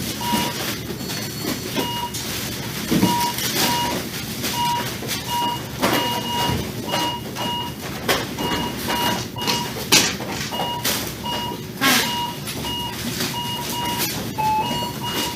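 Checkout cash register beeping in short, same-pitched beeps, two or three a second, as items are keyed or scanned, with clicks and clatter of goods being handled.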